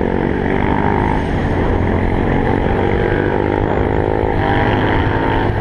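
Motorcycle engine running under acceleration, its pitch climbing, levelling off, then climbing again near the end, over wind rush on the microphone.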